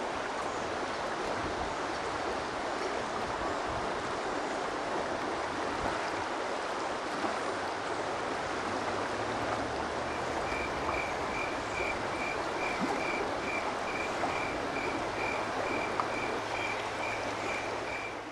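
Steadily flowing stream water, an even rushing. From about ten seconds in, a high-pitched chirp repeats about twice a second over it.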